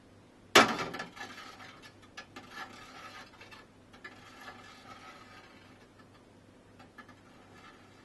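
A glass tumbler set down on a perforated stainless-steel drip tray: one sharp clink about half a second in that rings briefly, followed by a few faint clicks and rattles as it settles.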